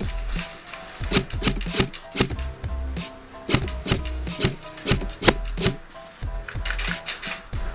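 Background music with a steady drum beat: deep bass, punchy kick drums and crisp high percussion over a held synth tone.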